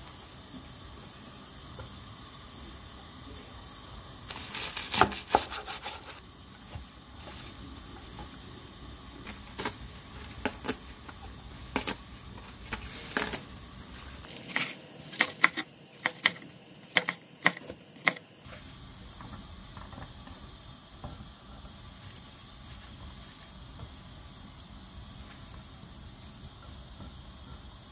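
Vegetables being handled on a wooden cutting board: three clusters of sharp clicks and knocks over a steady faint hiss. The middle cluster comes as napa cabbage leaves are snapped off the head.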